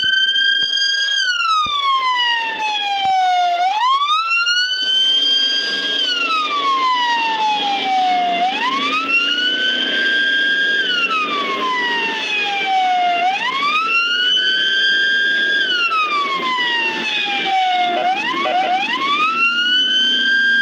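Ambulance siren in wail mode: one tone that rises, holds briefly at its top, then falls slowly away, repeating about every five seconds.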